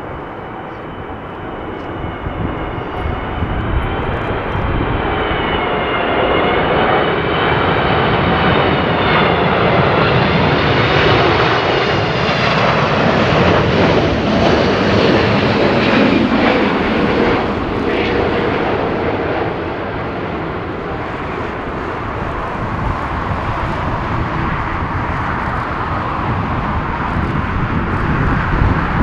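Boeing 777-200ER's twin turbofan engines on final approach as the jet passes close by. A whine that wavers up and down in pitch rides over the broad engine noise. It grows louder over the first ten seconds or so, then eases off somewhat in the second half.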